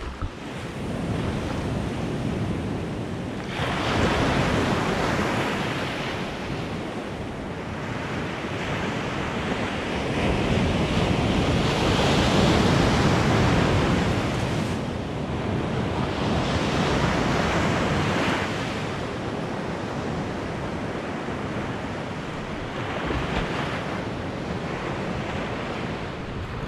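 Ocean surf breaking and washing up the beach in a heavy swell, the rush rising and falling in surges, with wind buffeting the microphone.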